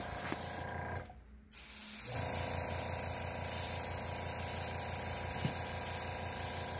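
Airbrush spraying white water-based paint onto metal spinner blades: a steady hiss of air and paint, with a steady machine hum under it. The spray breaks off briefly about a second in, then runs on steadily.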